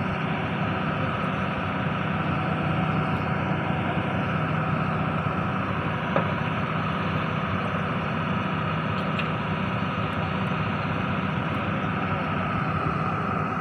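Heavy borewell drilling rig truck's engine running steadily.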